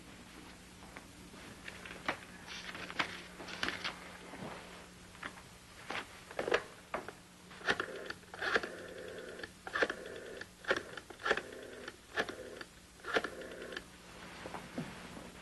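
Desk telephone being picked up and dialled: a run of sharp, uneven clicks from the handset and dial, thickest through the middle and latter part, with a faint whirr between them.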